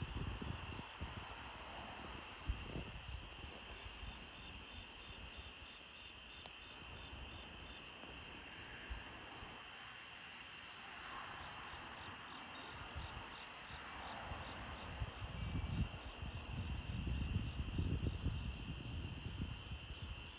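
Night chorus of crickets and other insects: several steady layers of fine, pulsing chirping and trilling at different pitches. Low rumbling noise on the microphone comes and goes and is strongest in the last few seconds.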